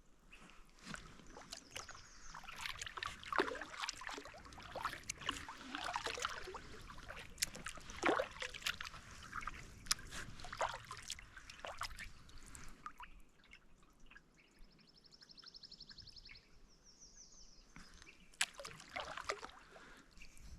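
Water trickling and dripping around a kayak as it is paddled, in irregular soft splashes. A short rapid trill sounds about two-thirds of the way in.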